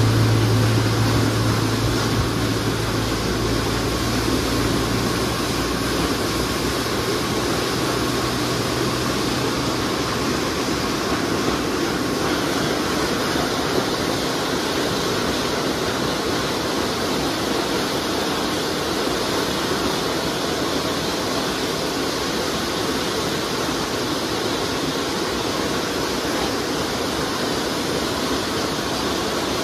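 A rake of empty sugarcane bins rolling past on a narrow-gauge cane railway, a steady rushing rumble. The low hum of the hauling locomotive's engine fades out over the first ten seconds or so.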